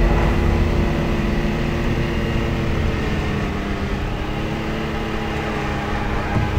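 Off-road 4x4's engine running steadily as it drives, a low rumble with a steady droning pitch.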